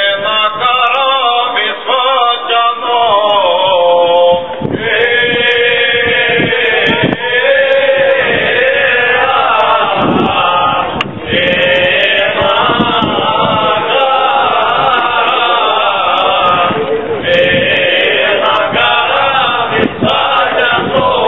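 Cretan rizitiko song sung by a male choir, the voices together on long held notes.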